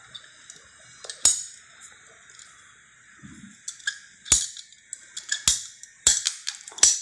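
Hand-held ratchet PP-R pipe cutter being squeezed through a plastic PP-R water pipe, giving a series of sharp, irregular clicks and snaps. One strong click comes just after a second in, and they come closer together and louder in the second half as the blade cuts through.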